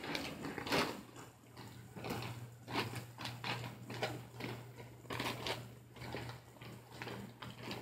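Plastic garment bag and clothing rustling and crinkling in short, irregular bursts as they are pressed into a soft suitcase.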